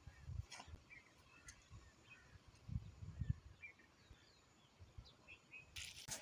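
Faint outdoor ambience with scattered short bird chirps, low bumps on the microphone, and a burst of hiss near the end.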